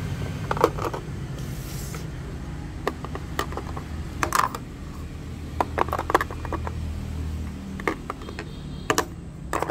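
Batteries being taken out of a portable radio's battery compartment and put down on a wooden desk: a string of irregular clicks and clunks from the metal-cased cells and the plastic compartment cover.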